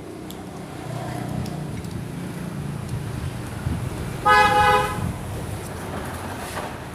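A vehicle horn honks once, a short toot a little over four seconds in, over the steady rumble of road traffic and engines.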